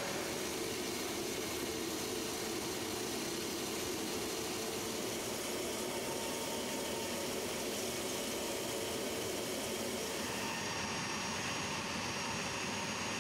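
Steady rushing whine of an A-10's twin General Electric TF34 turbofan engines running on the ground. The highest hiss drops away about ten seconds in.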